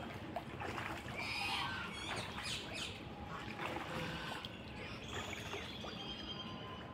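Ducks bathing in a pool: many short, high chirping calls over a busy background of water splashing.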